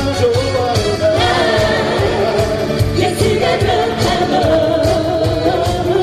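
Loud amplified pop-style song: voices singing a melody over a backing track with a steady beat.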